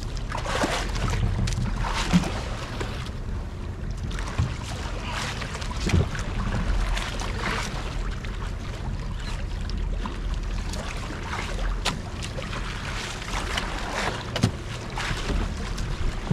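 Small fishing boat's engine running steadily, with wind and water noise over it and a few scattered knocks.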